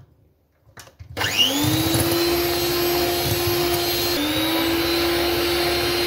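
Electric hand mixer switched on about a second in, its motor whine rising to speed and then running steadily as the beaters whisk a frothy egg, sugar and oil cake batter.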